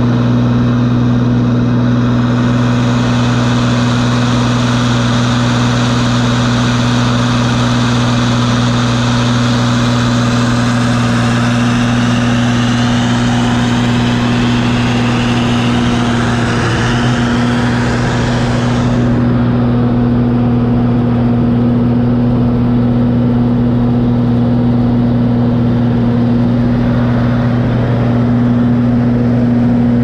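Gleaner combine running with a loud, steady low engine hum. A higher rushing noise over it fades out about two-thirds of the way through.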